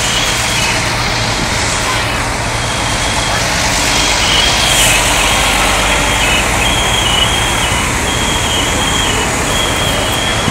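Parked fire engines running: a steady engine rumble with a broad roar. Over it, a high electronic beep repeats in short groups every second or two.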